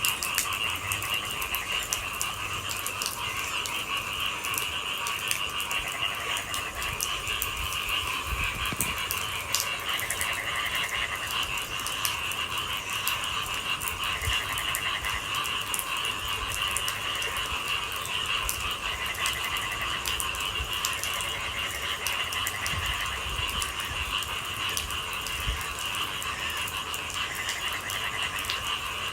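A dense night chorus of frogs calling continuously in two steady trilling pitches, with scattered ticks of raindrops over it.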